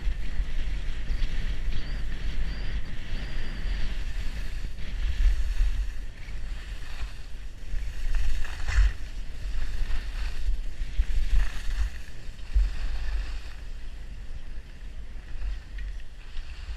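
Wind rushing over the camera microphone along with the hiss and scrape of skis sliding fast over groomed snow. Both ease off near the end as the skis slow down.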